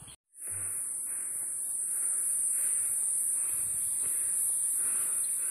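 Insect chorus droning steadily at a high pitch, starting just after a brief gap.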